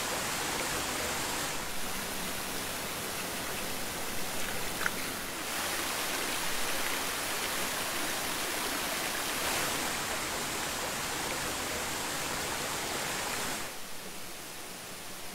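Steady rushing of a small waterfall and the shallow rocky stream below it, a dense, even hiss of falling and running water that becomes quieter near the end.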